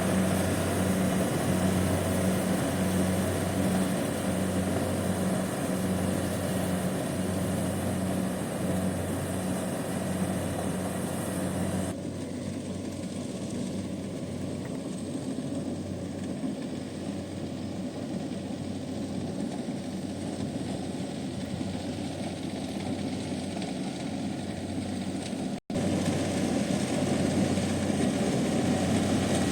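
Kubota DC70 combine harvester running steadily, a low pulsing engine hum under a wide mechanical noise. The sound changes suddenly about twelve seconds in, turning duller, and cuts out for an instant near the end before it returns louder.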